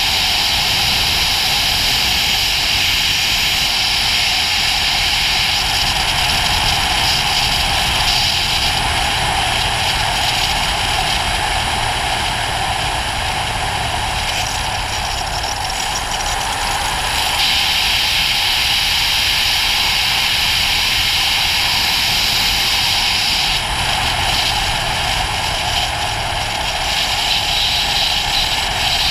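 Ducati GT1000 motorcycle on the move: a steady rush of wind noise with its air-cooled V-twin engine running underneath. The rush thins out briefly a little past halfway, then comes back.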